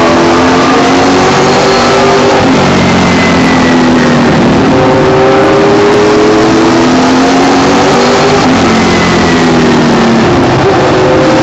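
Late model race car's V8 engine heard from inside the cockpit at racing speed: the engine note climbs steadily, then falls back twice, a couple of seconds in and again about eight seconds in, as the driver lifts for the turns, over steady wind and road noise.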